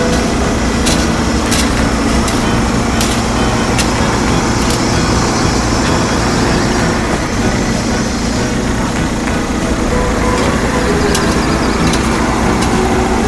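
A heavy engine running steadily, with scattered sharp clicks of gravel clattering as stones are scooped and poured into a toy dump truck's plastic bed, most of them in the first few seconds and a few more near the end.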